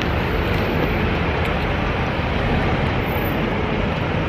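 Steady rumble of city street traffic, buses and cars, as a constant low noise without distinct events.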